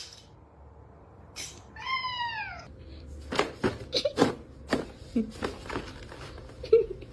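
A domestic cat meowing once, a single call falling in pitch about two seconds in, followed by a run of irregular sharp knocks and taps.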